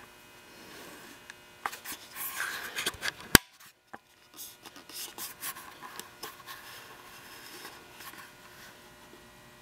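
Scraping and rubbing handling noise as a handheld camera is moved about, with one sharp click about three and a half seconds in.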